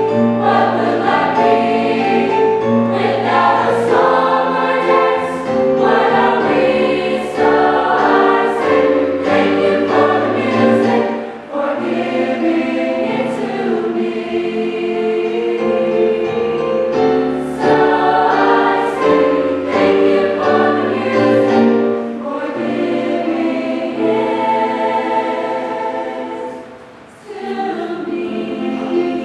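Mixed show choir singing in harmony, many voices holding and changing chords, briefly softening twice.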